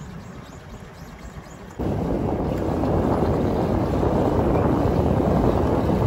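Wind rumbling on the microphone. It jumps abruptly to a loud, steady rush about two seconds in.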